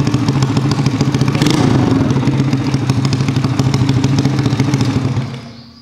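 Daytona 140cc single-cylinder four-stroke in an underbone moped, running through a GL Racing aftermarket exhaust at a steady idle. There is one short throttle blip about a second and a half in, and the engine stops near the end.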